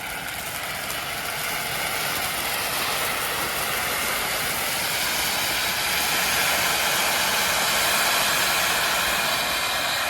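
Homemade tezutsu hanabi, handheld tube fireworks loaded with dragon fountain fireworks, spraying sparks with a steady, loud hiss that grows louder.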